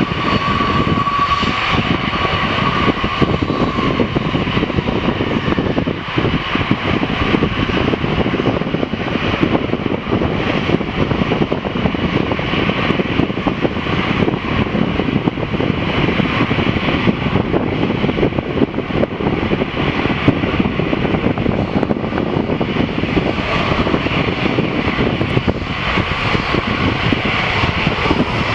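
Airbus A340-300 airliner's four CFM56 turbofan engines running, a loud steady jet noise. A faint whine sounds at first and fades out a few seconds in.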